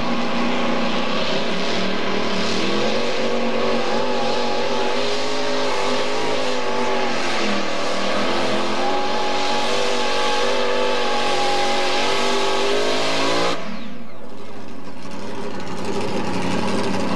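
Mini modified pulling tractor's engine running at full throttle under load while hauling the weight sled. Its pitch wavers and climbs, then the engine cuts off suddenly about four seconds before the end, marking the end of the pull, and a lower, steady drone is left.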